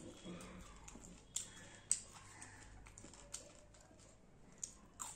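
Eating by hand: fried fish picked apart with the fingers and chewed, heard as a handful of sharp, scattered clicks and smacks.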